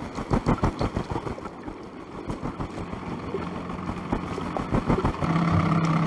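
A small boat on the water. A quick run of low knocks and slaps comes in the first second or so, and a steady engine hum starts about five seconds in.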